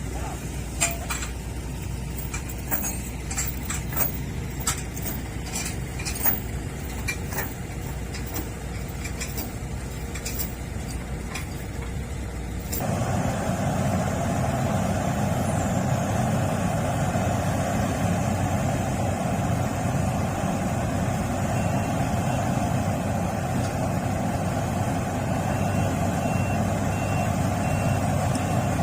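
Heavy diesel machinery running during the loading of an excavator onto a lorry trailer, with scattered sharp metal clanks. About halfway through it changes abruptly to a louder, steady engine sound, with a faint repeated beeping near the end.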